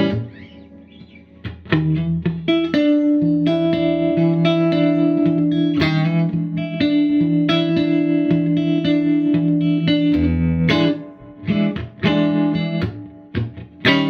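Electric guitar, a Stratocaster, playing strummed chords through a Fender '64 Deluxe Reverb custom shop hand-wired tube amp with its tube tremolo switched on; the tone is warm. A chord dies away at the start, strumming picks up about two seconds in and rings steadily, then breaks into a few separate chord hits after about ten seconds.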